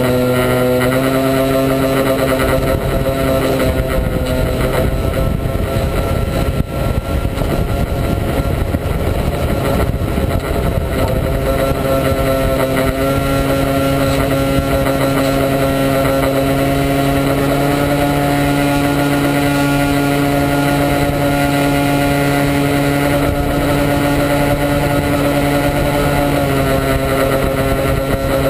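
RC model airplane's motor and propeller running steadily, heard from a camera mounted on the plane, with a rushing airflow noise. The steady tone fades for several seconds early on, leaving mostly the rush, then comes back and holds.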